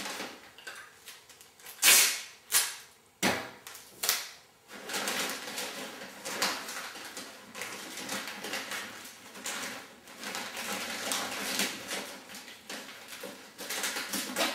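Packing paper rustling and crinkling as sheets are folded around a small kitchen appliance, with a few short, loud rasps between about two and four seconds in.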